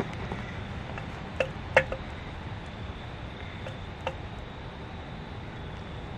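A few sharp metallic clinks, like hand tools knocking against steel parts. Two come close together about a second and a half in and a fainter one follows around four seconds, over a steady low background noise.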